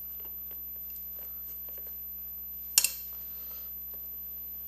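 Motorcycle drive chain being fed by hand through the chain guide: faint light clinks of the links, then one sharp double clink about three seconds in.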